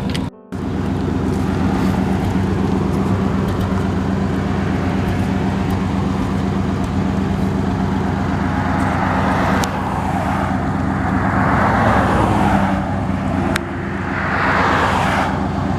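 A steady engine hum runs throughout, with road traffic passing: the sound swells as a vehicle goes by about two-thirds of the way through and again near the end.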